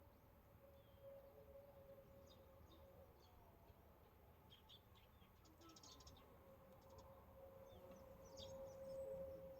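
Faint, scattered bird chirps, more of them in the second half, over a quiet background with a faint steady tone that grows a little louder near the end.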